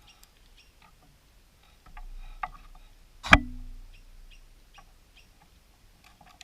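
Light plastic clicks and taps from an opened car key remote and its coin battery being handled, with one sharp, louder click and thud about halfway through.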